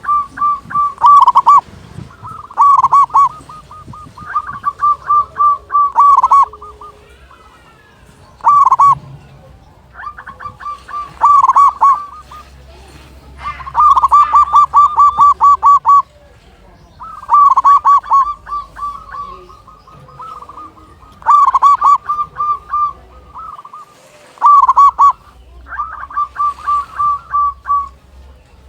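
Local zebra dove (perkutut) in full song, cooing over and over: each phrase is a quick run of pulsed notes at much the same pitch, with a pause of a second or two between phrases, about ten phrases in all.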